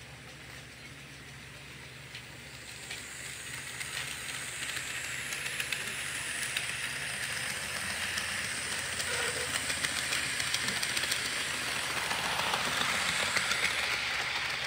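Model train with an autorack car rolling along plastic sectional track, growing steadily louder as it approaches, with a hiss and many quick light clicks of the wheels over the rail joints.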